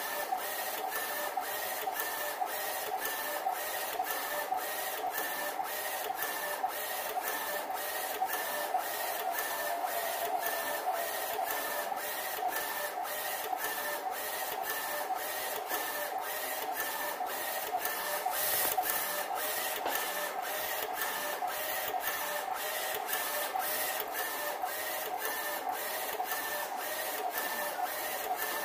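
BYC168 UV flatbed printer printing onto bottles turned by its rotary cylinder attachment: the print carriage shuttles back and forth with a steady motor whine that pulses in time with a regular click about twice a second.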